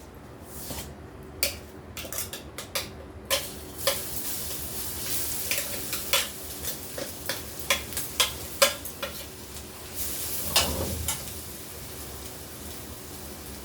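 Utensil stirring and tapping in a pan of hot sesame oil, with frying sizzle: a run of sharp clicks and scrapes, and a louder stretch of sizzling about ten seconds in.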